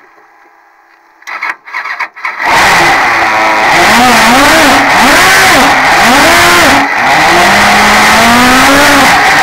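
Suzuki GSX-R1000 inline-four engine of a prototype race car restarting: near silence for about a second, a few short cranking bursts, then it catches about two and a half seconds in and is revved up and down in quick throttle blips. Near the end a longer rising rev as the car pulls away.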